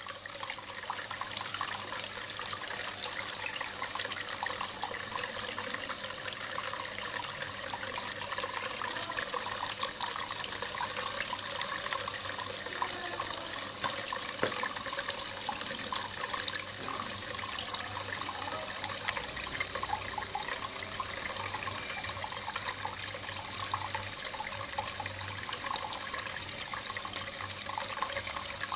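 Water from a small cement garden waterfall pouring and splashing steadily into a fish pond.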